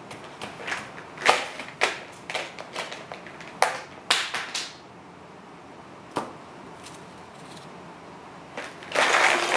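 Irregular light taps and clicks of a paintbrush dabbing on paper and against a watercolour paint tin, thinning out and stopping a little past halfway. Near the end there is a loud burst of handling noise.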